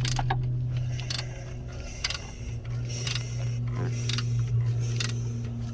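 Short metallic clicks and clinks about once a second from hand tools working on the engine, over a steady low hum.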